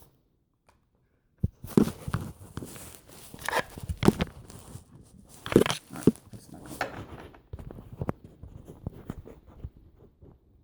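After a brief silence, irregular clicks, knocks and rustling from hands handling a small plastic N-scale model locomotive.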